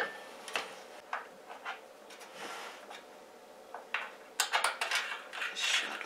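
Scattered light metallic clicks and taps as a nail is worked against the sheet-metal base of an opened microwave oven. The taps are sparse at first, then come in a quicker run about four seconds in.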